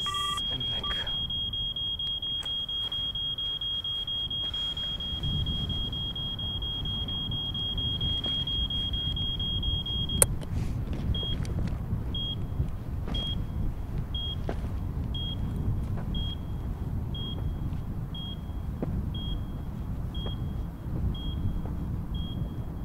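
A steady high electronic tone for about ten seconds that stops with a sharp click, then a military mine detector beeping short high beeps about once a second as it is swept over sand, over a low rumble of wind.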